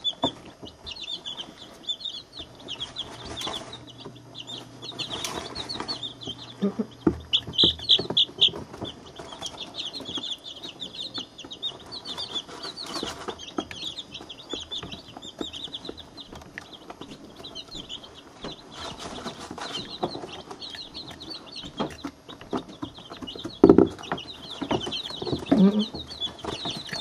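A brooder full of week-old chicks (barred rocks, silver laced wyandottes, blue copper marans and ISA reds) peeping continuously in quick, high chirps. There are scattered taps and rustles, and one louder knock near the end.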